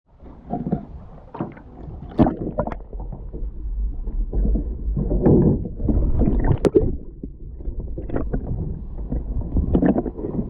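Muffled water sloshing and gurgling heard through a submerged action camera's waterproof housing, with scattered sharp knocks and clicks.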